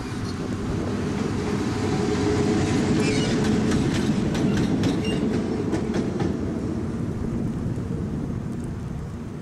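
Electric locomotive running light as it passes close by: a steady rumble with its wheels clicking over rail joints. It is loudest in the middle, where the clicks come, and fades as it moves away.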